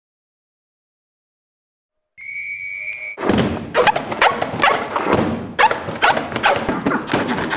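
Silence, then about two seconds in a single steady high-pitched squeal, then many rubber balloons squeaking and thumping at once in a dense, irregular run, as a group plays balloons as instruments.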